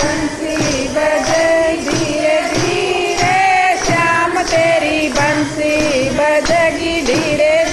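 Group of women singing a Hindi devotional bhajan (kirtan) together, with jingling hand percussion keeping a steady beat.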